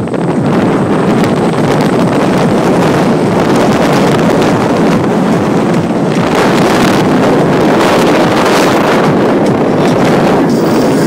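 Loud, steady wind buffeting an iPhone's microphone as the phone moves along a street at speed.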